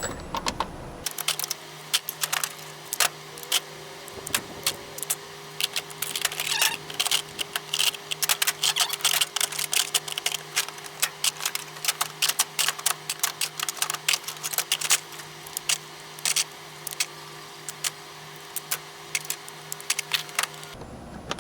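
Steel impact sockets clinking and clattering as they are handled and set into a small box: many quick, irregular metal clicks over a steady low hum.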